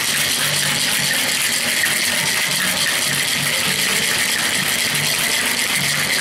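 Ice rattling hard inside a Boston cocktail shaker as a drink is shaken vigorously, a dense, continuous clatter.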